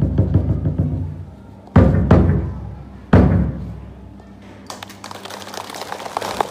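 Large Vietnamese school drum: a fast roll of strokes fades out, followed by three heavy single strikes, each ringing on. These are the closing beats of the drum that signals the start of the school year. Near the end a low murmur of a crowd rises.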